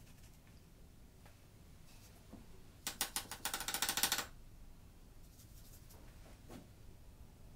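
A quick run of rapid clattering clicks, about a dozen a second for a second and a half, as a paintbrush is rattled against a jar; a few faint taps and brush sounds before and after.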